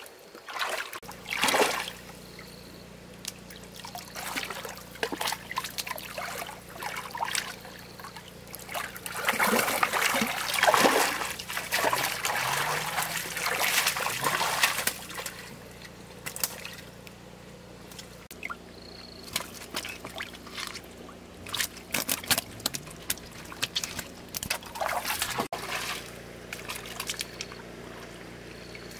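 Water splashing and trickling in uneven bursts, loudest about nine to fifteen seconds in, over a steady low hum.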